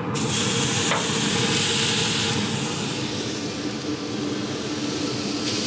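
Thick bone-in ribeye steak sizzling on very hot grill grates, a loud hiss that starts suddenly as the meat is laid down, over a steady low hum.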